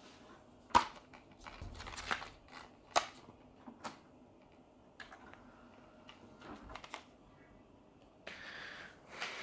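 A Blu-ray disc being handled and set into the open plastic tray of an Oppo UDP-203 player: a few sharp clicks and knocks, the loudest about a second in, then a short soft rustle near the end.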